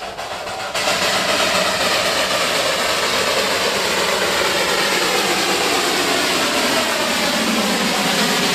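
Darjeeling Himalayan Railway toy train running: a loud steady rumble that starts abruptly about a second in, its engine pitch slowly falling.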